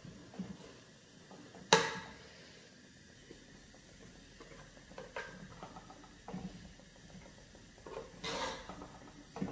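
A metal spoon stirring thick rice pudding in a stainless steel pot, knocking and scraping against the pot. There is a sharp clink about two seconds in, a few light taps, and a longer scrape near the end.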